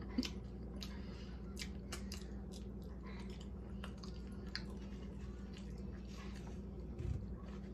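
Close-up chewing of a chicken taco: scattered moist clicks and smacks of the mouth, over a steady low hum.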